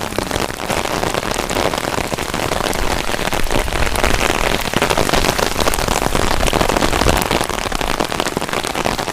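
Steady patter of rain, a dense crackle of small drops hitting a surface.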